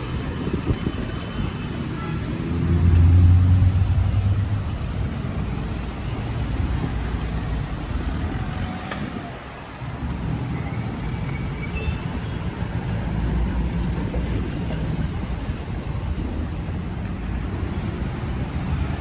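City street traffic: motor vehicle engines and tyres running steadily, with one louder engine swelling and passing close by about three seconds in.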